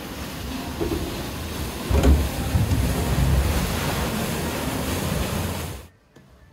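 Rushing, splashing water of a boat ride's flume channel, with a deep rumble, growing louder about two seconds in as water churns around a boat at the foot of a chute. It cuts off suddenly near the end.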